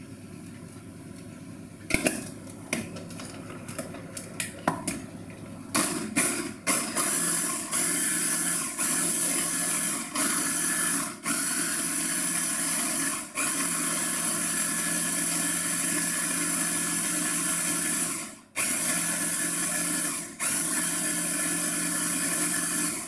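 Electric hand blender with a chopper-bowl attachment blitzing roughly chopped onion, celery, tomato and fresh herbs. The motor runs in short pulses that stop and restart, then in one longer run of about five seconds. The first few seconds hold only a few knocks and clicks before the motor starts.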